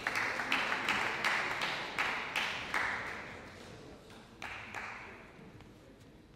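Spectators clapping in a steady rhythm, about three claps a second, ringing in a large hall. It fades out over about three seconds, with a last couple of claps a little later.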